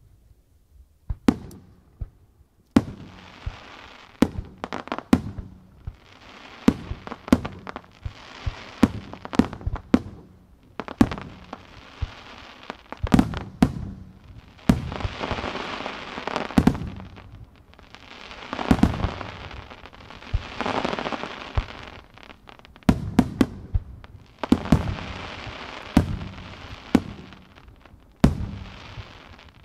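Japanese aerial firework shells bursting one after another: dozens of sharp bangs in quick succession, many followed by a hiss lasting a second or two.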